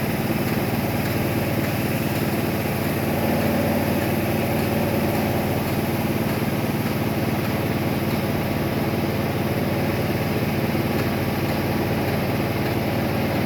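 A pressure washer's engine running steadily at an even pitch.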